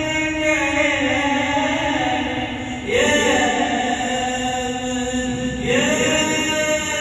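A male voice chanting an Islamic ibtihal, holding long sustained notes. A new, louder phrase begins about three seconds in and another near six seconds.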